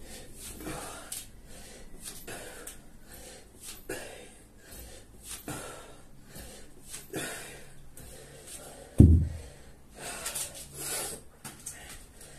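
Hard breathing with forceful exhales during 53 lb kettlebell swings, five of them about a second and a half apart, then a heavy thud about nine seconds in as the kettlebell is put down on the floor.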